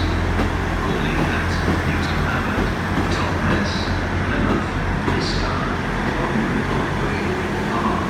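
Class 159 diesel multiple unit at the platform, its diesel engines running with a steady low drone that eases after about a second. Several short high-pitched squeaks come through over it.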